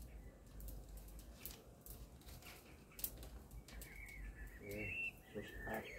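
Faint scattered clicks and crackles at a charcoal barrel grill as sausages are laid on the grate. A bird chirps about four seconds in, and a low voice murmurs briefly near the end.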